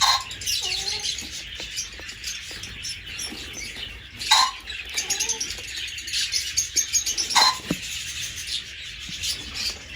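A group of small cage birds chirping busily, with three louder, sharper calls spread through it, one at the very start, one around the middle and one a few seconds later.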